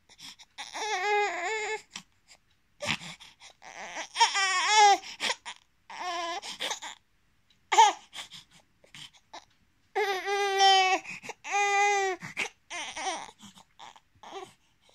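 Sleeping infant crying out in short, high cries of about a second each, separated by pauses, with fainter sounds near the end: crying in its sleep, which the uploader takes for a nightmare.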